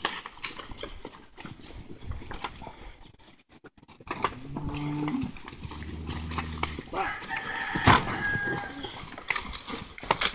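Cattle in a pen: one cow lowing, a low call held for about two and a half seconds near the middle, over scattered knocks and shuffling from the herd moving on straw. A rooster crows faintly near the end.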